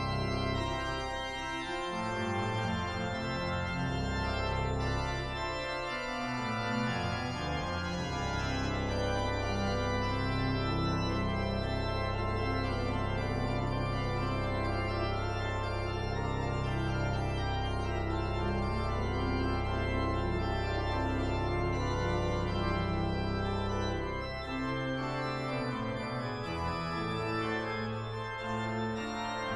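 Slow organ music: sustained chords over a long-held bass note, which stops about three-quarters of the way through.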